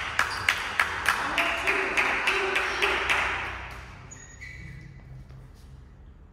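Spectators clapping in a steady rhythm, about three claps a second, with cheering over it, swelling and then dying away after about four seconds.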